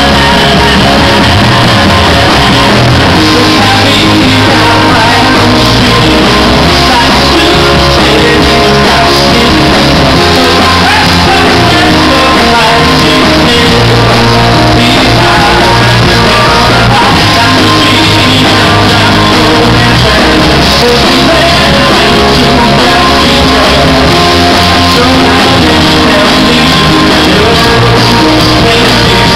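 Live rock band playing with a male singer singing into a handheld microphone, very loud and dense throughout, with a steady bass line underneath.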